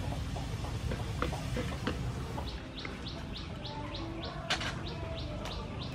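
A bird chirping one short high note over and over, about three times a second, starting about halfway in, over a low steady rumble with a few sharp knocks.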